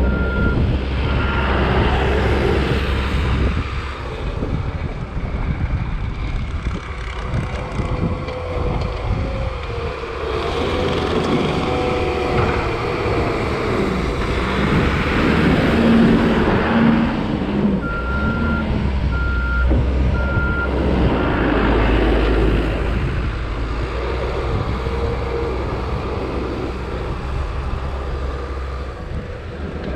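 Diesel engine of heavy snow-plowing equipment working steadily, with its backup alarm beeping twice near the start and three times, about a second apart, around two-thirds of the way through.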